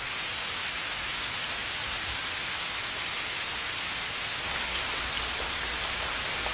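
Heavy monsoon rain pouring down in a steady, dense hiss, coming in suddenly right at the start.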